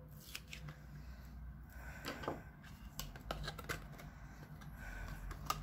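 White card stock being handled and folded by hand: light paper rustling with scattered small taps and clicks.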